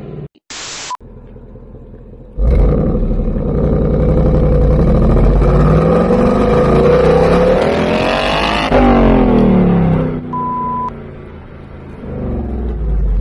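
Ford Mustang GT's 5.0 L V8 through its active-valve performance exhaust, heard from right at the tailpipe as the car accelerates. The engine pitch climbs steadily for about six seconds, then drops away as the throttle is released, and the engine picks up again near the end.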